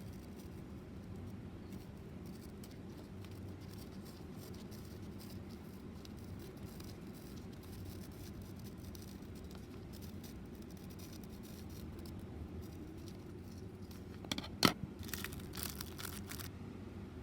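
Faint scratching and crinkling over a steady low hum, with a single sharp knock near the end followed by a short run of clicks.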